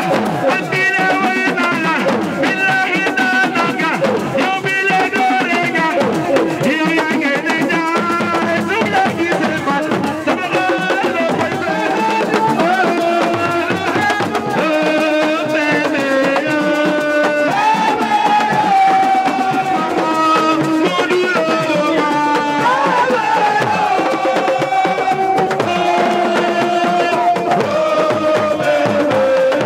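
Music with drumming and a continuous pitched melody line.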